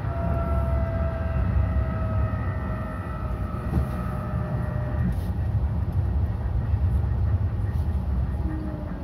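Tram running along city track, heard from inside near the front: a steady low rumble, with an electric whine that slides slightly down in pitch and fades out about five seconds in.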